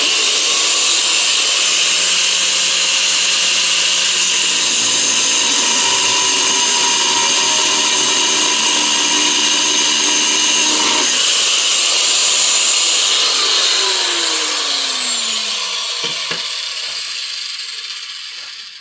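Black & Decker angle grinder with a cutoff wheel cutting through a steel exhaust clamp: a loud, steady high whine with grinding hiss. About 11 seconds in the cut eases off, and from about 13 seconds the motor winds down with a falling pitch.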